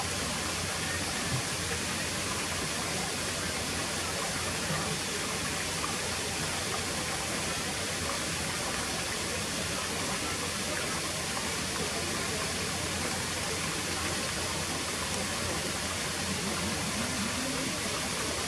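Steady, even rushing noise, like running water, with no distinct events.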